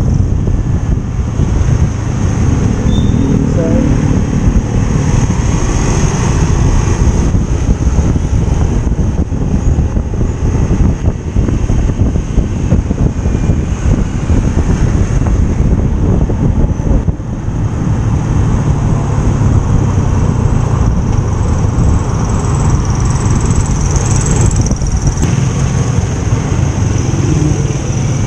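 Motorcycle engine running while riding through town traffic, with wind and road rumble on the microphone.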